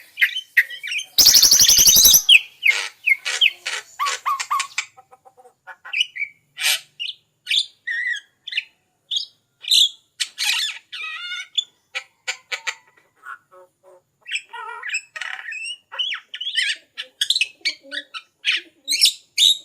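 Starlings and mynas (jalak) calling: a busy string of short whistles, chirps and squawks, with a loud, harsh rasping screech about a second in.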